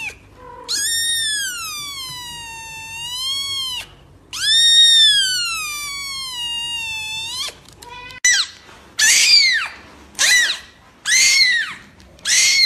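Kittens meowing: two long, drawn-out meows of about three seconds each, then, from about eight seconds in, a tiny kitten crying in short, high mews about once a second.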